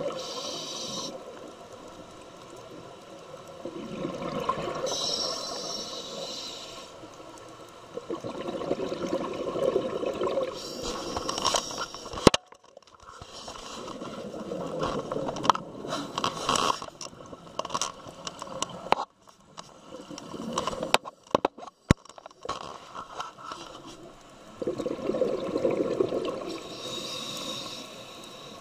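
Scuba diver breathing through a regulator underwater: a high hissing inhale alternating with a gurgling rush of exhaled bubbles, about four breaths over the stretch. Irregular clicks and brief dropouts come through the middle.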